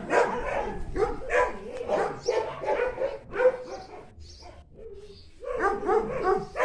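Dog barking over and over in quick short barks, with a pause about four seconds in before the barking starts again.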